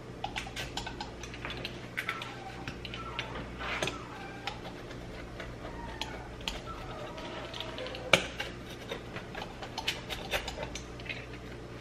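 Pizza cutter wheel rolling through baked naan flatbread on a wooden cutting board, making a run of small irregular crackles and clicks as the crust breaks, with one sharper knock about eight seconds in.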